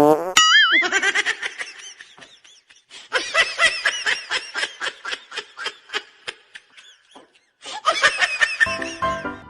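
High-pitched giggling laughter in rapid bursts, preceded by a brief warbling tone at the very start. It breaks off briefly, then resumes, and keyboard music comes in near the end.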